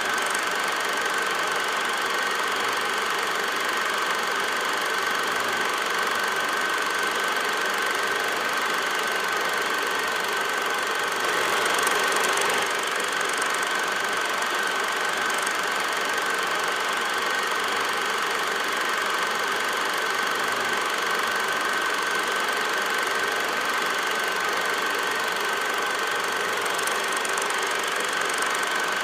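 Steady mechanical running noise with a constant high whine and an even hiss, unchanging throughout apart from a brief slight swell about halfway through.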